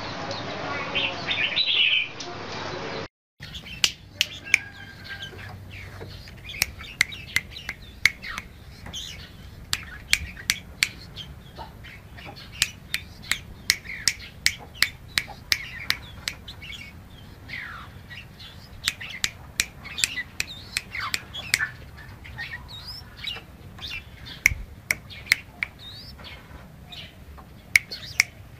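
Red-whiskered bulbul singing for about three seconds. After a brief cut comes a long run of sharp clicks, one to several a second and unevenly spaced, mixed with short chirps and rising and falling whistles from a male red-whiskered bulbul in its wing-spreading display.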